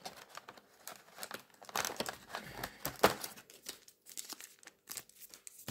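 Foil Adrenalyn XL football trading-card pack crinkling and being torn open by hand, a run of crackles with the sharpest snap about three seconds in.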